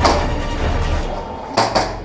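Background music that fades out about a second in, with a sharp crack at the start and two sharp airsoft gun shots in quick succession near the end.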